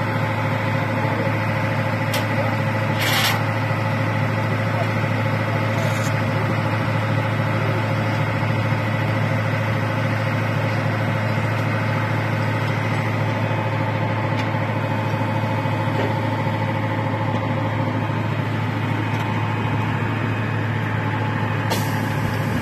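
Steady, unbroken engine drone of a Sukhoi Su-30 fighter jet, with a few short clicks early on and near the end.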